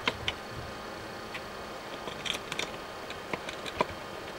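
Light, scattered clicks and ticks of small metal parts in a cassette-deck mechanism being handled and fitted by hand.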